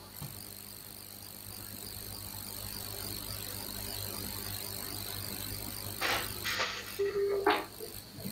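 Steady low hum under a faint, continuous high drone, the background noise of a video-call line. A few short rustling noises and a brief low tone come about six to seven and a half seconds in.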